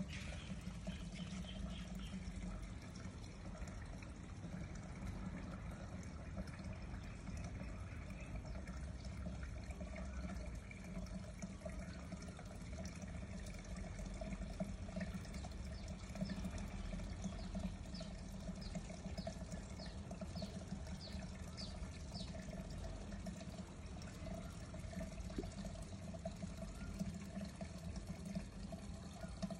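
Water pouring steadily into a concrete fish pond from its circulation system, over a low steady hum.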